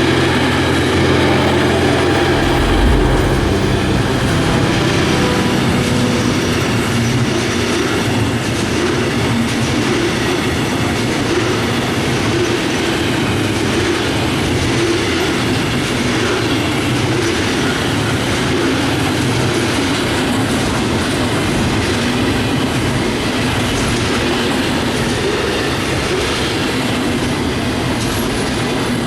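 A train passing close by, its wheels rolling over the rail joints with a continuous clatter and rumble. A low steady hum fades out about three seconds in.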